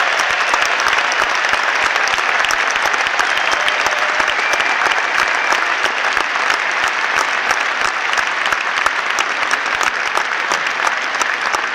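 A large concert crowd applauding steadily, dense clapping that eases off slightly near the end.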